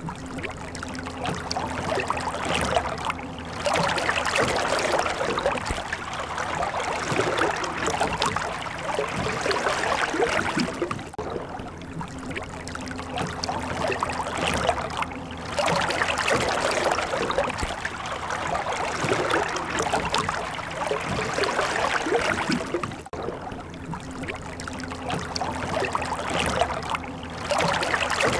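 Steady rushing, water-like noise with a faint low hum under it. It is a loop that cuts and restarts about every twelve seconds, twice here.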